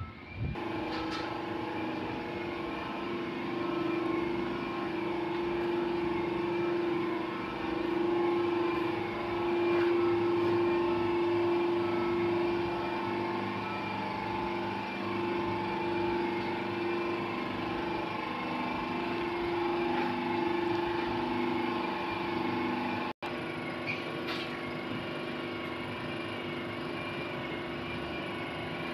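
A steady machine hum made of several held tones, with a higher tone that warbles up and down evenly. It drops out for an instant about 23 seconds in.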